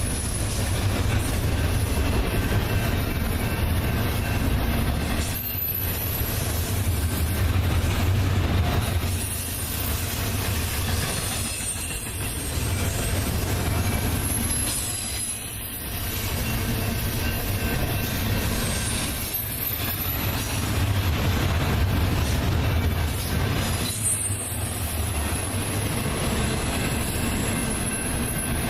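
Double-stack container train's cars rolling past: a steady rumble of wheels on rail with a thin, high wheel squeal. The sound dips briefly every few seconds.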